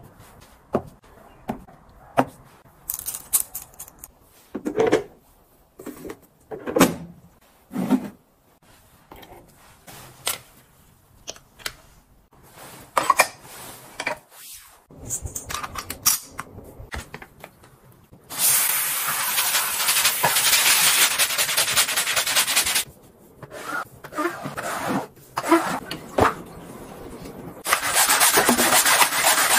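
Household gadgets being handled, with scattered clicks, taps and rubbing. Two stretches of steady hissing are the loudest part: one about four seconds long past the middle and a shorter one near the end.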